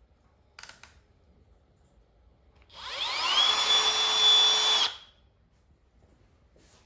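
Brushless motor of a Milwaukee M12 cordless tool spinning up with a rising whine, running steadily for about two seconds, then stopping abruptly. It is preceded by a few brief clicks.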